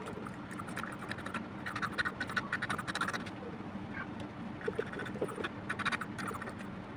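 Hand vacuum brake-bleeder pump drawing old, black brake fluid out of the master cylinder reservoir through a clear plastic tube: short sputtering sounds in irregular runs, busiest about two to three seconds in and again near six seconds. This is the reservoir being emptied before the brake fluid is flushed and the brakes bled.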